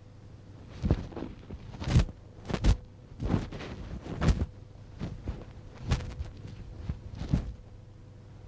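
Sharp, irregular swishes and thumps of a martial artist's loose uniform and steps as he moves through a Xing Yi Quan form, about a dozen in eight seconds, the loudest around two and four seconds in.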